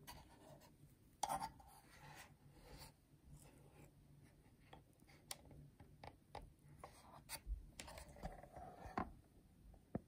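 Faint handling noise: fingers rubbing and scratching on the plastic shell of an Oculus Quest 2 VR headset, with scattered small clicks and taps.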